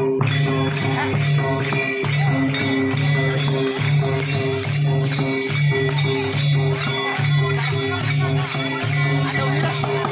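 Live Dindi procession music: a two-headed barrel drum played by hand in a steady pulsing beat, with jingling metal percussion striking about three times a second.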